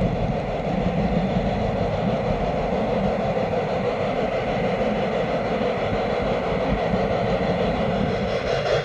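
Garden-scale two-truck Shay logging train running along its track, a steady, even rolling noise of wheels and running gear over a low rumble.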